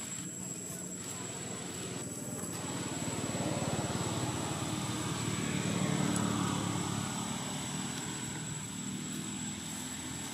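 A motor engine droning, growing louder over the first half, loudest about six seconds in, then fading again, as a passing vehicle does. A thin, steady high-pitched whine runs underneath.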